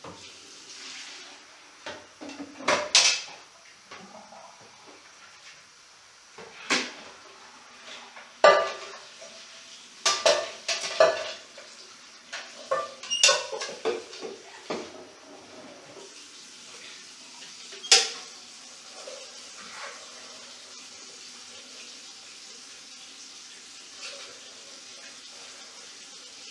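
Metal camping pot being scrubbed and knocked against a ceramic washbasin: a run of sharp clanks and scrapes through the first half, one more clank about 18 seconds in. Tap water runs steadily underneath.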